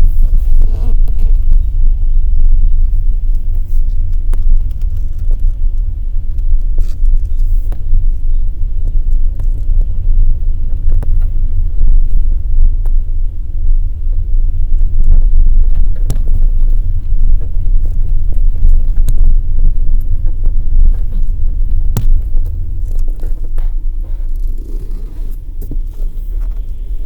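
A car being driven, with a heavy, steady low rumble and scattered short creaks and clicks: the squeaks from the car's body or suspension that are being recorded.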